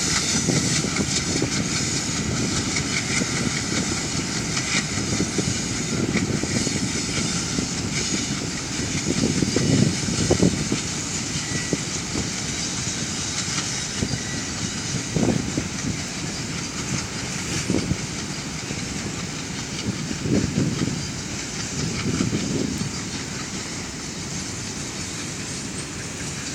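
Mixed freight train rolling past, its wheels clacking over rail joints over a continuous rumble, with a few heavier thumps.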